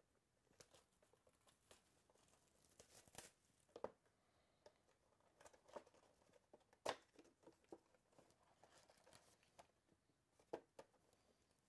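Faint crinkling and tearing of plastic shrink-wrap as it is stripped off a sealed 2017 Certified football card box, then the cardboard box being opened, with a few sharper clicks and crackles scattered through.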